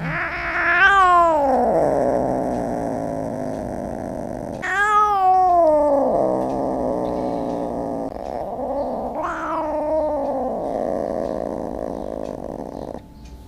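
A cat yowling: three long, drawn-out wails, each starting high and sliding down in pitch, about four seconds apart. The yowling stops near the end.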